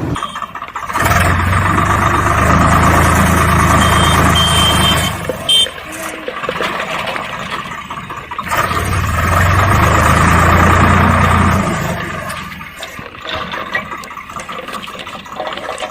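A motor runs in two spells of about four seconds each, starting about a second in and again about halfway, with quieter rattling in between and after.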